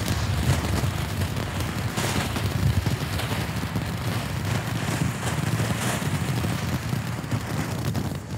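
Black Cat "SHHH!!!" firework cake firing: a continuous dense crackling and fizzing of sparks, with many small pops and a low rumble underneath.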